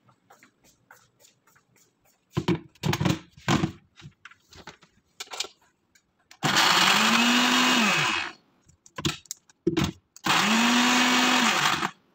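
Small electric food chopper blending tomato, ginger and chili into a paste, pulsed twice. Each time the motor spins up, runs steadily for about two seconds and winds down when released. A few knocks and clicks come first, in the first half.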